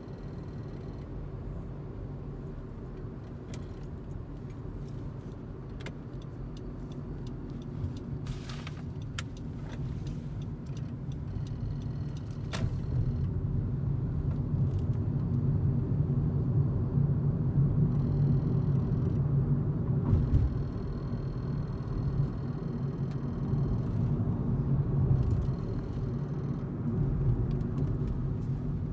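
10th-generation Honda Civic driving, a steady low rumble of engine and road noise that grows louder about halfway through. A few sharp clicks come through the rumble, the kind of noise the owner hears from the driver's side of the new car and which the dealer could not find.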